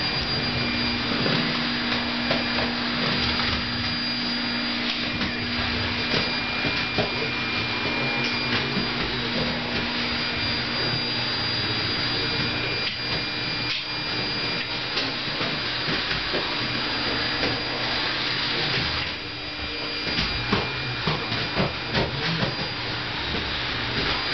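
Household vacuum cleaner running steadily, its motor's whine and airflow hiss continuous. In the last few seconds, a series of short knocks sounds over it.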